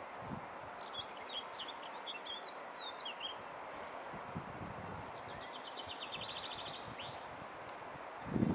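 Small songbirds chirping, then a fast trill of even notes, over a steady outdoor background hiss. A short louder low rumble comes near the end.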